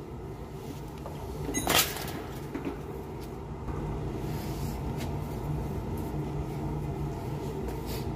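A steady low hum with one sharp knock a little under two seconds in and a few faint clicks after it.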